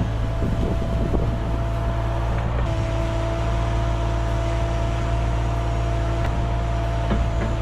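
Cat 305 mini excavator's diesel engine running steadily, with a thin steady whine over the drone and a second, lower whine joining for a few seconds in the middle.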